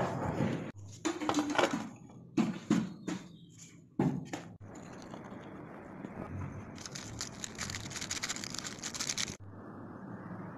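A foil instant-coffee sachet crinkling and tearing in four short bursts over the first few seconds. Then comes a steady hiss that grows brighter and stops abruptly about a second before the end.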